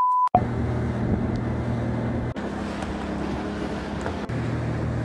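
A short steady beep at the very start, then a small boat's outboard motor running steadily under way, with wind on the microphone and water rushing past the hull.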